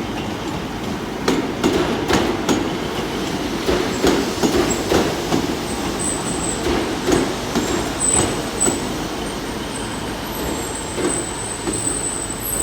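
Class 150 Sprinter diesel multiple unit running slowly into the platform: wheels knocking unevenly over rail joints and points over a steady underfloor rumble, with a thin high squeal now and then in the second half.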